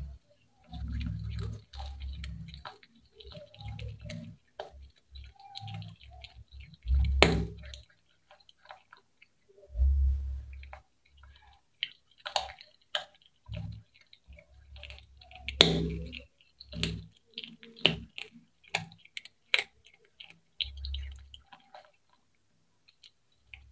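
Cat chewing fried fish close up: irregular wet crunches and sharp clicks of teeth on fish, mixed with dull low thumps, the loudest crunches about seven and sixteen seconds in.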